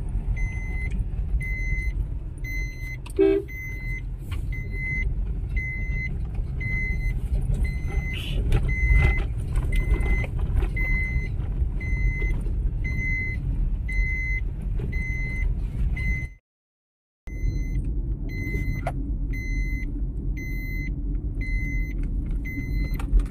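Low road and engine rumble inside a moving car, with an in-car warning chime beeping evenly about twice a second throughout. A brief louder tone sounds about three seconds in, and the sound drops out completely for under a second about two-thirds of the way through.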